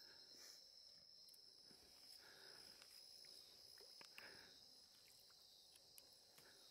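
Near silence with a faint, steady, high-pitched chorus of night insects and a few soft ticks.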